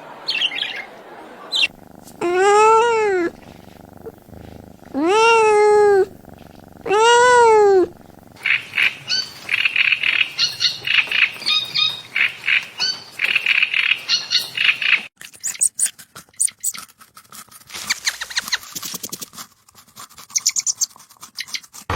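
Animal calls: three drawn-out calls that rise and fall in pitch, then a stretch of quick, high chirping, then a run of sharp clicks.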